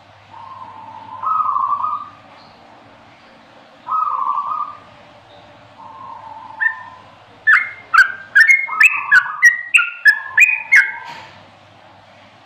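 Yellow-vented bulbul (trucukan) singing: three short warbled phrases, then past the halfway point a fast run of about a dozen loud, sharp notes, about three a second, in the rapid-fire 'ropelan' song style.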